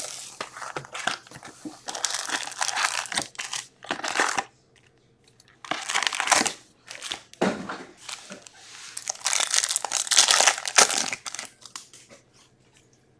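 Plastic wrapping crinkling and tearing in irregular bursts with short pauses, as a box of hockey card packs and its packs are torn open by hand.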